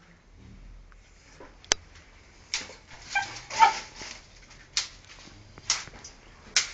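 Jack Russell terrier giving short, sharp yips and whines, roughly one a second from about two and a half seconds in. The dog is excited at a cat up a tree.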